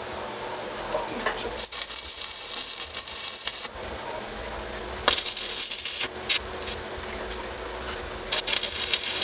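TIG welding arc crackling and hissing as filler rod is fed into a steel tube joint. It comes in three spells: about two seconds, then about a second, then another near the end, over a steady faint hum.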